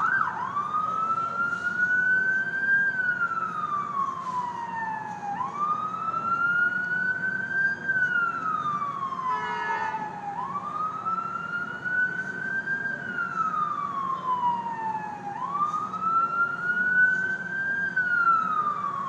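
Ambulance siren in a slow wail, each cycle climbing for about two and a half seconds and sliding back down for about as long, repeating about four times after a brief fast yelp at the very start. Steady traffic rumble underneath.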